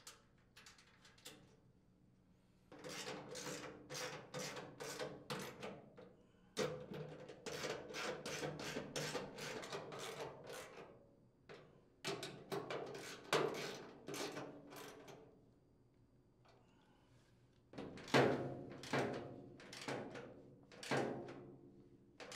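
Socket ratchet clicking as the hopper mounting nuts are tightened on a chipper shredder's metal housing, in four runs of rapid, even clicks with short pauses between.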